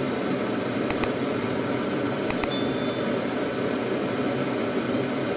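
Gas blowtorch burning steadily with a constant rushing noise as it heats a small mild-steel test piece to red heat. About a second in come two sharp clicks, and around two and a half seconds a click followed by a short bell ding: a subscribe-button sound effect.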